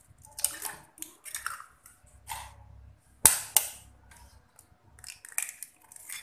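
Eggs being cracked with a metal spoon: a series of sharp taps and shell cracks, the loudest pair about three seconds in, with more small cracks near the end.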